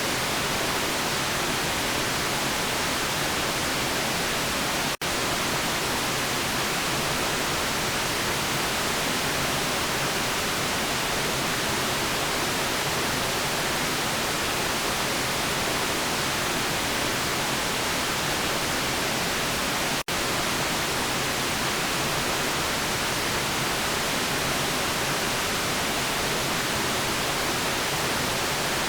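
Steady, even electronic noise of the sleep-aid kind, an unbroken hiss. It cuts out for an instant twice, about five and twenty seconds in.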